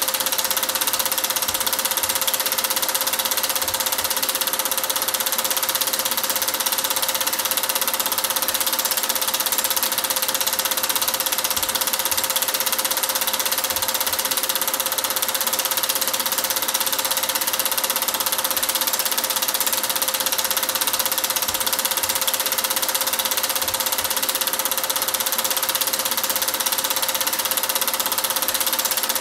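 Cine film projector running: a steady mechanical whir with a constant hum and hiss.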